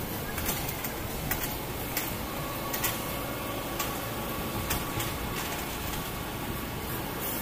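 Kobelco mini excavator's diesel engine running steadily while it digs, with sharp clinks at irregular intervals, about one a second.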